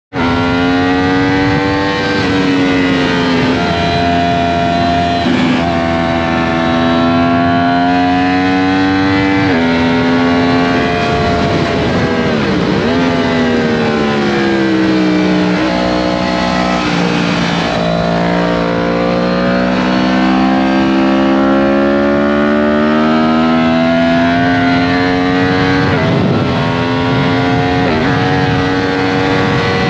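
Yamaha MT-10's crossplane inline-four engine under way, heard from on board the bike. The engine pitch climbs steadily and falls sharply several times as the rider works through the gears, with a few brief dips and recoveries along the way.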